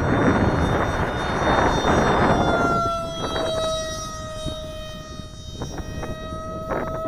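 Electric RC jet's Turnigy 2826/6 brushless outrunner motor and 6x4 APC propeller whining steadily overhead, one held pitch with overtones. A rushing noise lies over it for the first two and a half seconds, then fades.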